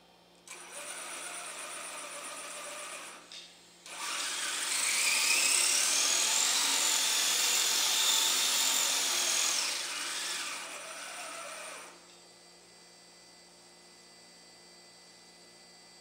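Electric drive motors and gearboxes of a six-track RC semi truck whining as it drives on its tracks. They start about half a second in, stop briefly near three seconds, then run louder with a rising whine as it speeds up. The sound eases off and stops about twelve seconds in, leaving a low hum.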